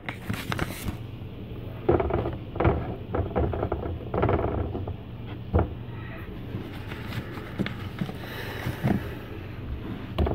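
Scattered knocks, rustles and clatter of food prep things being shifted onto a cutting board, heard through a phone lying face down, over a steady low hum.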